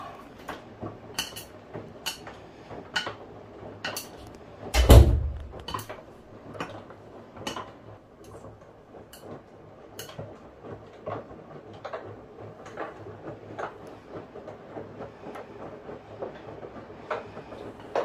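Winia (Daewoo) DWD-35MCRCR wall-mounted mini washing machine running a wash, quiet apart from light knocks from the load tumbling in the drum, coming about every half-second to second, with one louder thump about five seconds in.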